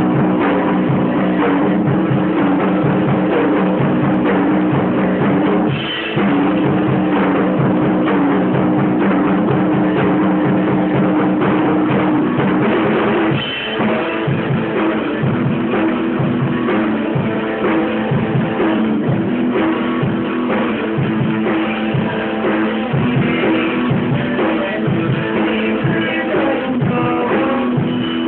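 Amateur rock band playing live: electric guitar chords over a drum kit, with a short break about 6 s in and another about 13 s in, after which the drums keep a steady beat.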